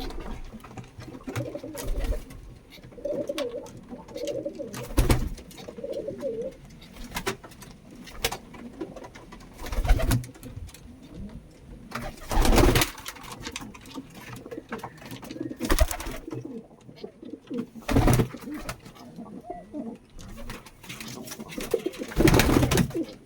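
Domestic pigeons cooing in low, rolling phrases, broken about seven times by short, loud, noisy bursts.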